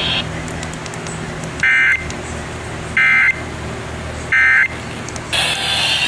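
Emergency Alert System SAME data tones: three short, identical electronic data bursts, roughly a second and a third apart. They are the end-of-message code that closes a broadcast alert. About five seconds in, a longer, harsher burst of data tone begins.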